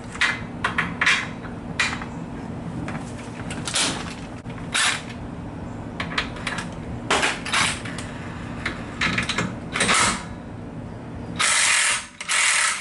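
Hand ratchet with a 17 mm socket loosening the rear lower shock-absorber bolt, its pawl clicking in short irregular strokes, with louder bursts of noise near the end.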